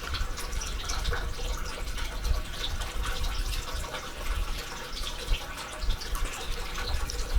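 Water trickling and dripping steadily in a small room.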